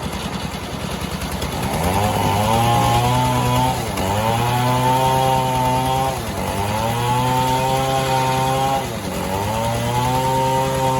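Two-stroke chainsaw running near full throttle, its pitch dipping briefly and climbing back about every two to three seconds as the chain bites into mahogany wood.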